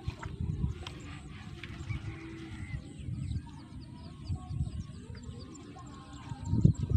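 Open-field ambience: uneven low rumbling that gets louder near the end, with faint bird or fowl calls.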